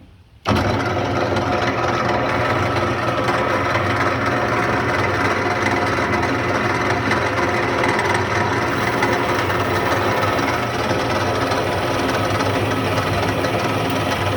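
Wilton 3535 horizontal metal-cutting bandsaw, with a 1 hp single-phase motor and a coarse 3-teeth-per-inch blade, switching on about half a second in and then running steadily. It is set up to cut through a 4.5-inch steel bar.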